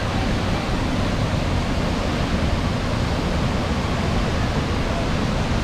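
Mountain waterfall rushing steadily at close range, running high after a lot of recent rain.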